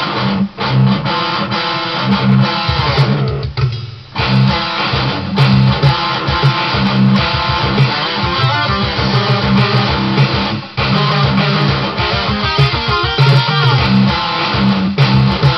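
Electric guitar playing an original metal piece: a rhythmic low riff with fast fretted runs, breaking off briefly a few times.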